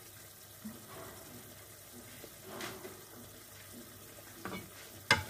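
Chicken pieces simmering in soy sauce and water in a pan over low heat: a faint, steady bubbling and sizzling, with a few soft pops and one sharp click near the end.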